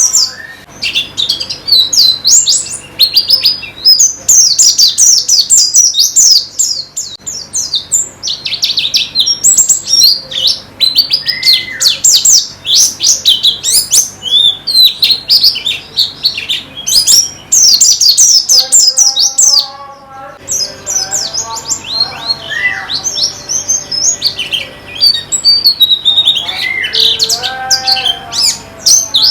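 White-eyes (pleci) singing a fast, unbroken chattering song of high chirps and trills, with a few lower, steadier notes mixed in during the later part.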